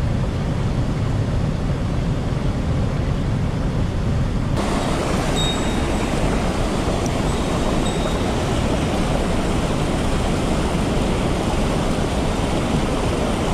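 Steady rush of a mountain river over rocks, with water spilling over a weir just upstream. The sound changes abruptly about four and a half seconds in, becoming fuller and brighter.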